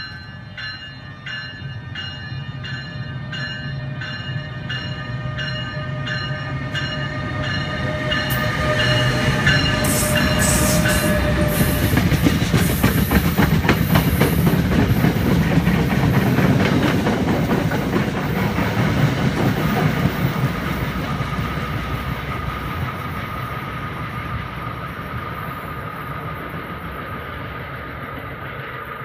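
NJ Transit ALP-46 electric locomotive pulling three Comet coaches out of the station under hard acceleration, its bell ringing about twice a second for the first ten seconds over a low hum and a slowly rising whine. The train then passes close by, its wheels clattering over the rail joints, loudest in the middle and fading away as it recedes.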